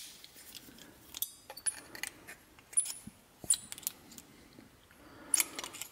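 Scattered light metallic clicks and clinks as small pliers grip and bend thin copper petals, a few of them with a short high ring.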